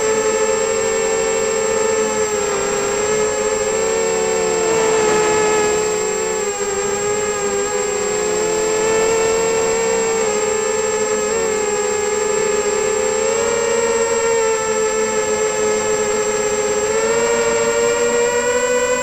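HobbyKing FPV260 quadcopter's brushless motors and propellers heard from its onboard camera: a steady whine of several close tones that waver and dip in pitch as the throttle shifts. A thin, constant high tone runs over it.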